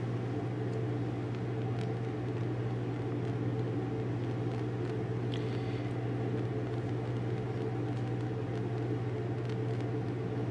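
Bunsen burner flame burning with a steady low hum as it is held under a porcelain crucible, dehydrating copper chloride hydrate. A faint tick about five seconds in.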